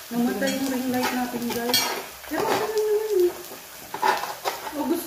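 A metal spoon and tongs clink and scrape on an electric grill plate while pork belly pieces sizzle on it. A few sharp utensil clicks stand out, the clearest about two seconds in. A pitched voice runs over it, louder than the utensils.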